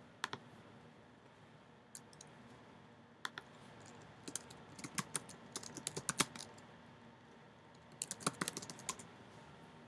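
Typing on a computer keyboard: a few short bursts of quick keystrokes with pauses between them.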